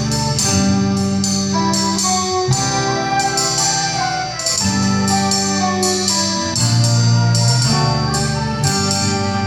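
Live band playing an instrumental passage with no singing: held low chords that change about every two seconds, under a quick, steady rhythmic pattern.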